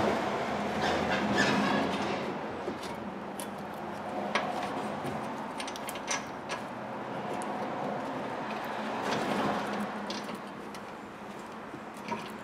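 Light metallic clicks and clinks of a brake caliper mounting bracket and pad being worked into place over the rotor, scattered irregularly, over a steady low hum.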